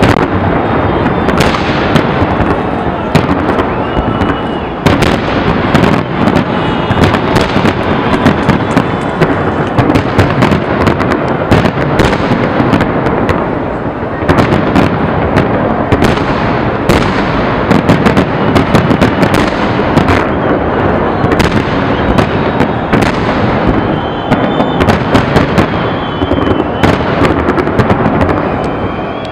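Aerial firework shells bursting in quick, overlapping succession: a dense run of sharp bangs and cracks over a continuous loud din, with no pause.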